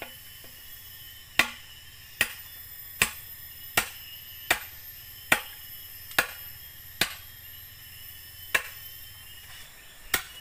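A blade chopping into a thick green bamboo pole: about ten sharp, ringing strikes, roughly one a second, with a longer pause near the end. Insects drone steadily in the background.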